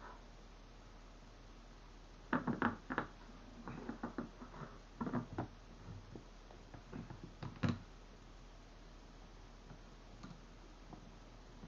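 Handling noise: a run of sharp knocks and clattering taps of hard objects being moved and set down, starting about two seconds in and ending with a louder knock near eight seconds, followed by a few faint ticks.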